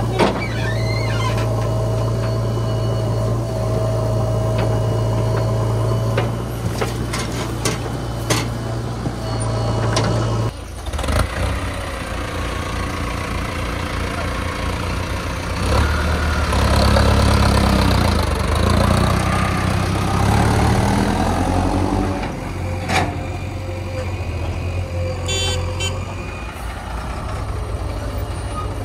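Heavy diesel machinery engines running, with a steady note for the first ten seconds and a few sharp knocks. The note changes about ten seconds in, and the engine revs up louder and varies in pitch from about 16 to 21 seconds before settling back.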